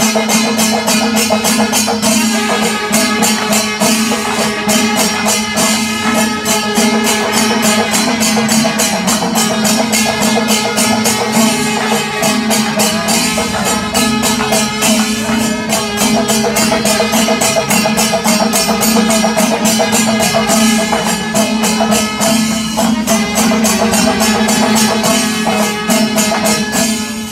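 Kerala temple-festival percussion ensemble: drums and hand cymbals keeping a dense, steady beat over a held wind tone.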